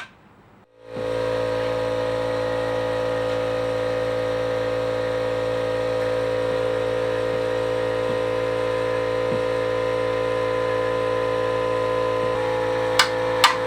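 A motor-driven shop machine starts about a second in, comes up to speed and runs with a steady whir and hum. Two short clicks come near the end.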